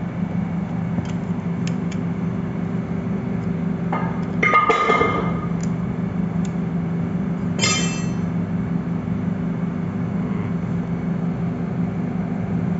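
Steady machinery hum throughout. Two metallic clinks ring out, the louder about four and a half seconds in and a shorter one near eight seconds: a screwdriver knocking against the cast-iron casing of a condensate extraction pump motor.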